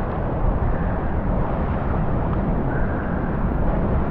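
Steady rushing noise of wind buffeting the microphone over running water at a spillway, strongest in the low rumble.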